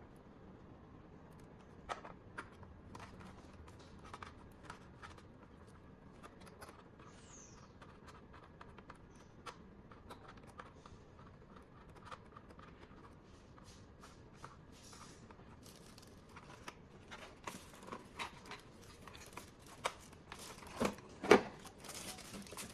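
Light clicks and scrapes of a VGA cable plug being fitted and handled at the back of a small plastic-cased monitor. Near the end, busier handling with packing-paper rustling and two louder knocks close together.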